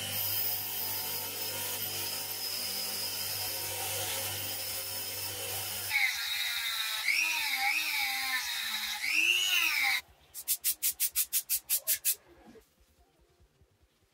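Bench grinder running with a wire wheel scouring an old gun part: a steady motor hum under a harsh hiss of wire on metal. About six seconds in, a handheld rotary tool takes over, its whine dipping and rising in pitch as it is pressed against the part. Near the end comes a quick run of about ten short, even scratchy strokes.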